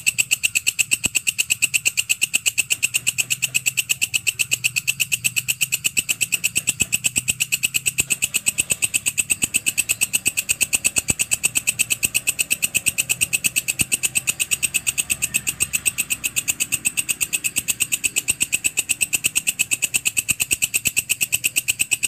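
Walang kecek (belalang kerik) grasshopper calling: a fast, even train of high, rasping pulses, several a second, keeping a steady rhythm and level throughout.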